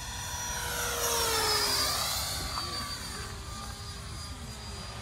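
Freewing F-15 RC jet's twin 90 mm electric ducted fans whining on a fast pass. The sound is loudest about one to two seconds in, and its pitch falls as the jet goes by.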